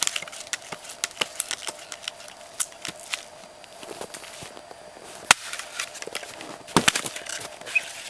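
Small axe chopping a round of firewood on a chopping block: a series of irregular sharp knocks of the blade biting into the wood, the loudest two a little past halfway through.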